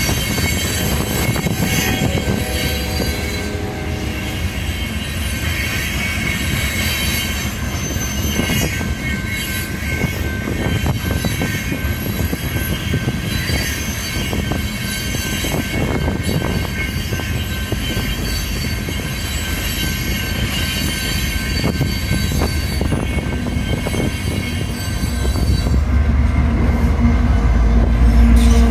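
Freight train cars rolling steadily through a grade crossing, wheels squealing and clattering over the rails, with the crossing bell ringing on a steady high note. Near the end a deep diesel locomotive rumble swells up and grows louder.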